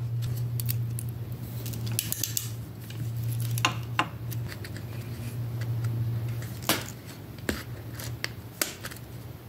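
Scattered small clicks and taps of hands handling a cable and small metal parts around a Yamaha PW50's carburetor, over a steady low hum that stops about two-thirds of the way through.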